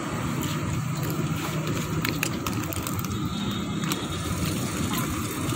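Steady street noise with a vehicle engine running, and scattered light clicks and clatter.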